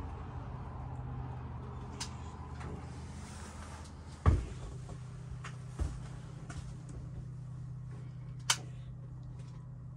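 Sharp clicks and knocks from working the burner knobs of an RV propane stove while trying to light it, with one louder low thump about four seconds in.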